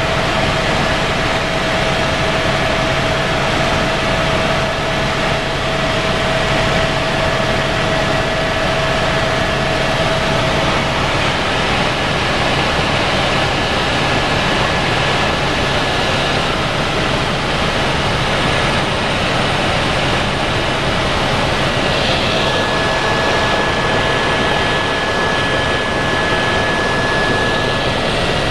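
Steady in-flight cabin noise of a tour helicopter: engine and rotor running, with a faint steady whine over the noise.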